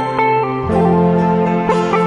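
Instrumental background music: plucked notes over held chords, with a new bass note coming in about two-thirds of a second in.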